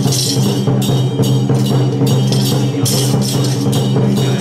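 Traditional Taiwanese temple percussion of the kind that drives a Song Jiang Zhen troupe: cymbal crashes about twice a second over a steady low ringing of gongs and drums.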